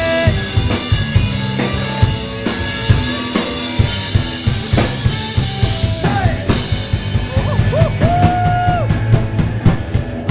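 Live rock band playing: drum kit with kick and snare driving the beat under electric guitars, ending in a quick run of drum strokes in the last second.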